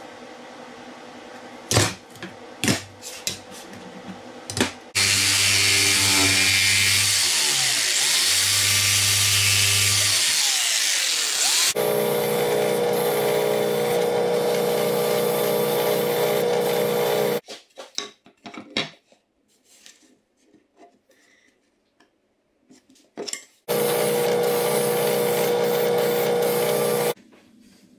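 A few light pencil and handling taps, then a loud power tool runs for about seven seconds with its pitch sliding. After that a benchtop drill press spins a sanding drum against the rounded end of a walnut insert blank, in two runs of about five and three seconds with a quiet gap between.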